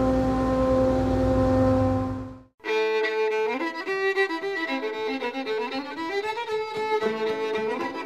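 Wood shop thickness planer running with a steady hum and whine; about two and a half seconds in it cuts off abruptly, and music led by a fiddle takes over.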